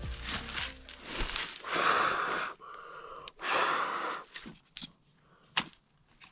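A person taking two long, wheezy breaths, each just under a second, amid rustling and a few sharp clicks. The breathing is that of a man with a stuffy nose and a cold.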